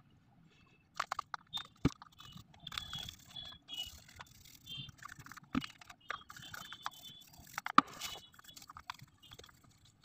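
Toothbrush scrubbing the plastic drain-pump filter of a front-load washing machine with soap: faint, irregular scratchy brushing and clicks of bristles on plastic, starting about a second in.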